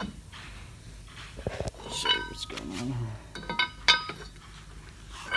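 Steel valve bar clinking against a plug valve's retainer as the retainer is worked into the valve body: several sharp, ringing metal-on-metal clinks, a pair about two seconds in, a cluster around three and a half to four seconds, and another at the end.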